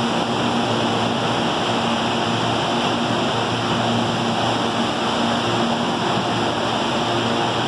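Electric commuter trains at a station platform: a steady rushing noise with a faint, steady low hum underneath.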